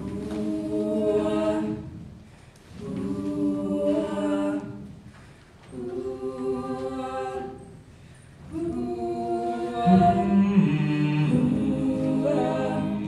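Mixed-voice choir singing a cappella in sustained chords, in phrases of about two seconds with short breaths between them. The last phrase is longer, and lower voices come in under it about ten seconds in.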